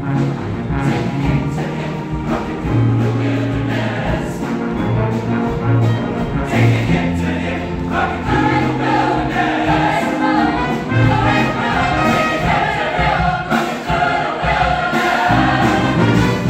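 Show choir singing an upbeat pop number with a live backing band: many voices singing together over a bass line and steady drum beat.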